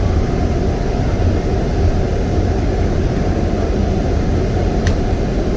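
Steady low rumble of a jet airliner heard from inside the passenger cabin: engine and airflow noise, with one faint click about five seconds in.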